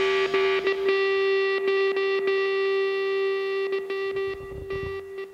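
Background music ends on one held, distorted electric guitar note that rings on and slowly fades out. Scattered light clicks sound over it.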